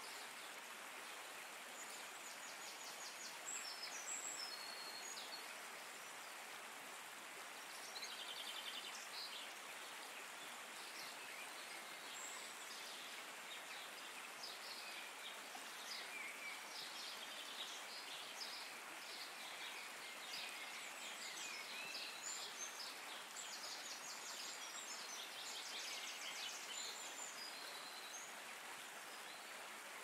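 Steady rush of flowing stream water, with birds calling over it in short, rapid trills and chirps that come and go, busiest in the second half.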